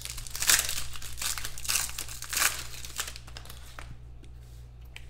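Foil trading-card pack wrapper being torn open and crinkled by hand, a dense crackling rustle for about three seconds, then fainter handling with a few light clicks as the cards are set down.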